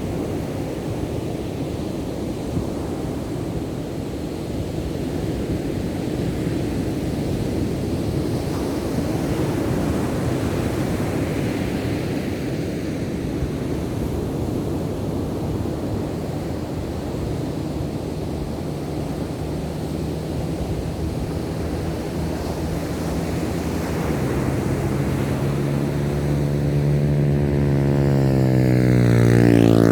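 Ocean surf breaking, with wind on the microphone. Past the middle an engine hum comes in and grows steadily louder, then sweeps down in pitch as it passes close at the end.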